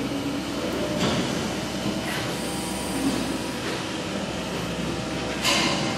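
Steady hum and noise of running machinery in a sheet-metal workshop, with short bursts of hiss or clatter about one, two and five and a half seconds in.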